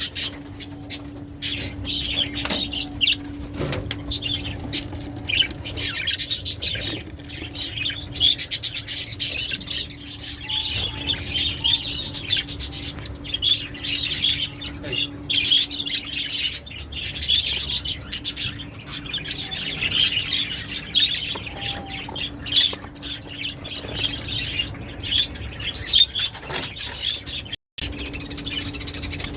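Lovebirds chirping and chattering nonstop, many shrill calls overlapping, over a steady low hum. The sound cuts out for an instant near the end.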